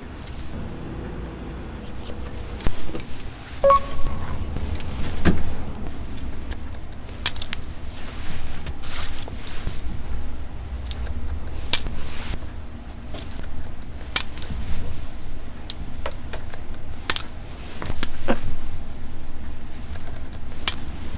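Hairdressing scissors snipping through hair in short, irregular cuts, with small metallic clicks of the blades, over a steady low hum. A brief metallic ping about four seconds in.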